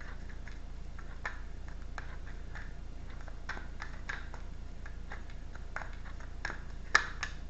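Tarot cards being shuffled and handled: scattered soft flicks and taps of the cards, with a sharper snap about seven seconds in.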